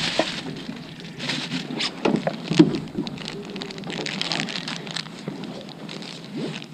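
Thin clear plastic bag crinkling and rustling in gloved hands, with irregular crackles, the sharpest a little over two and a half seconds in. A low steady hum runs underneath.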